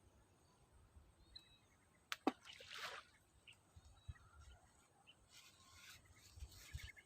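A ball of rice-and-bran fish bait lands in water with a short splash about two seconds in. A softer splash follows near six seconds, with a few faint bird chirps in otherwise near-quiet surroundings.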